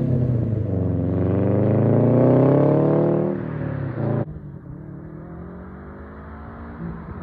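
Subaru WRX STI's turbocharged flat-four through a straight-through catback exhaust with no resonator and no mufflers, accelerating with the pitch climbing steadily for about three seconds before it lets off. About four seconds in the sound drops off abruptly to a quieter engine note that climbs slowly again.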